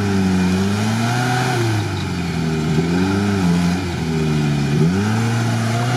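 Off-road vehicle engine revving up and down in about three surges under load, during a tow-strap recovery of a stuck vehicle from deep swamp mud.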